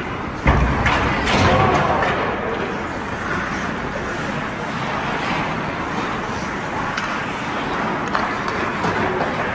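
Ice hockey game at the rink: voices of spectators and players over a steady rink noise, with one sharp knock about half a second in and a few lighter clicks later in play.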